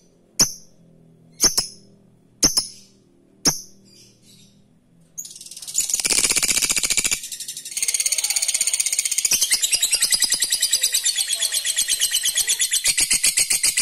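Lovebird giving a few sharp single calls about once a second, then, about five seconds in, breaking into a long, fast, high-pitched chattering trill, the 'ngekek' call.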